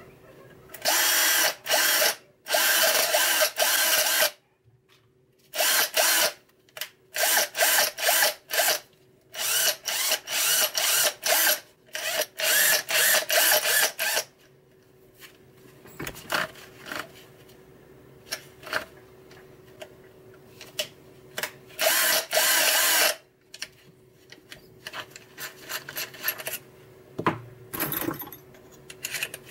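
TOPELEK electric drill motor running in bursts as the trigger is pulled and released: two runs of a second or two, then a quick series of short pulses, then one more run about 22 seconds in. Faint clicks and handling noises fall in the gaps.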